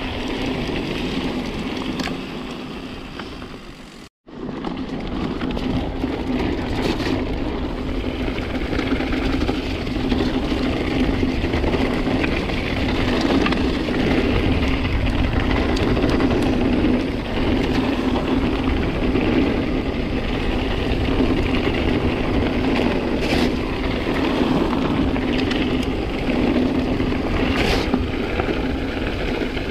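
Mountain bike descending a gravel forest trail at speed: steady tyre and trail noise with wind on the microphone and an occasional sharp knock. The sound drops out completely for a moment about four seconds in, at a cut.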